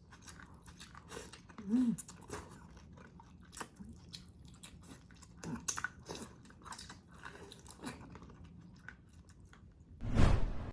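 A person chewing food close to the microphone, with many small mouth clicks and smacks. A brief louder rush of noise comes near the end.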